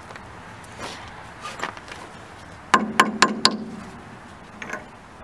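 Hand tool clinking against the nut and end of a steam locomotive's steel eccentric rod as the nut is worked loose: a few faint clicks, then four quick, sharp metallic knocks with a ringing tail, and one more light click near the end.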